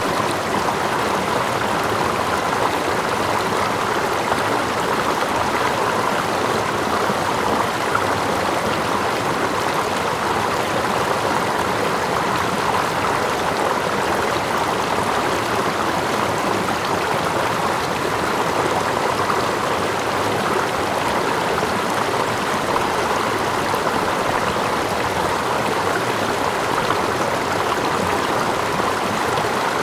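Steady running water of a stream, a layered ambience with water lapping close by and a small waterfall further back, even and unbroken throughout.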